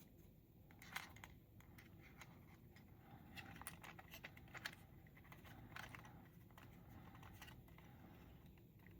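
Faint light clicks and handling noises of a scale model's landing gear door and hinge being fitted into place by hand, a few scattered taps with a small cluster about halfway through.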